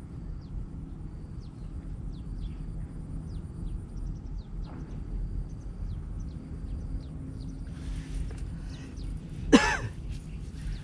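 Quiet outdoor ambience with a low rumble and many faint, short high chirps. About nine and a half seconds in, one brief loud cough.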